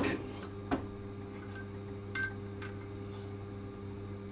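Bench drill press motor running with a steady low hum, with a few light metallic clinks as stainless-steel parts are handled at the machine.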